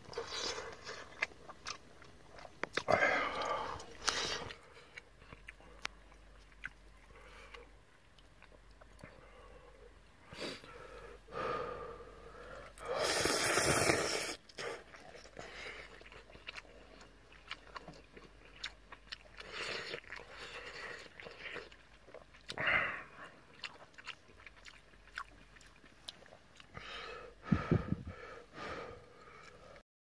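Close, wet chewing and slurping, with irregular smacking clicks and a loud slurp about 13 seconds in.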